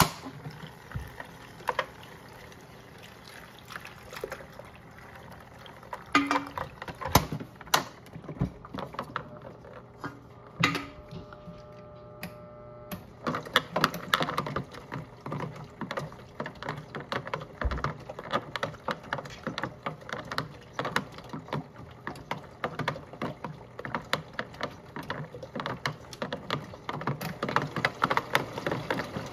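A toy front-loading washing machine washing a load: after a few knocks and a brief motor hum, the drum turns with water sloshing inside, over a fast, continuous clicking rattle from its small motor and gears.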